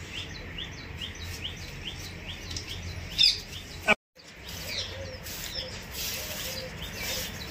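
Birds chirping, one of them repeating a short rising chirp about three times a second, with a louder sharp sound just after three seconds in and a brief dropout about four seconds in.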